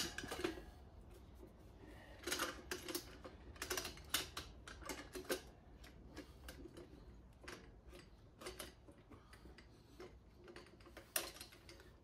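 Irregular light metal clicks and taps, some in quick clusters, from the duck head being fitted onto the bar of a Rabaconda motorcycle tire changer at the top of the wheel.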